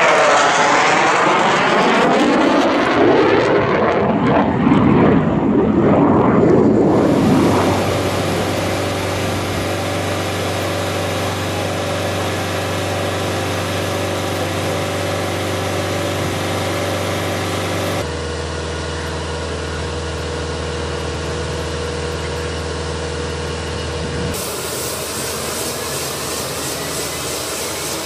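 A jet fly-past whoosh that sweeps up and down in pitch for the first seven seconds. Then the steady whine and hum of an MH-139A Grey Wolf helicopter's twin turboshaft engines running on the ground, changing abruptly twice where the footage is cut, with a faint rising tone near the end.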